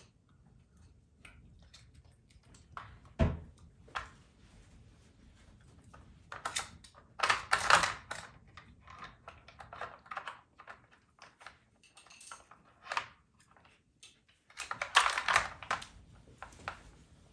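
Dog Brick plastic puzzle feeder being nosed and pawed by a puppy: hard plastic sliders and bone-shaped lids clicking and clattering against the board. There is one thump about three seconds in, and bursts of rattling about halfway through and again near the end.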